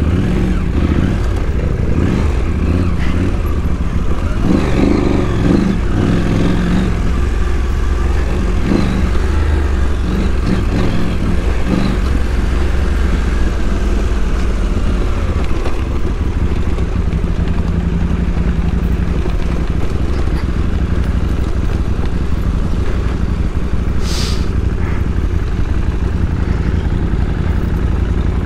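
KTM adventure motorcycle engine running steadily, uneven for a few seconds early on, with a brief hiss near the end.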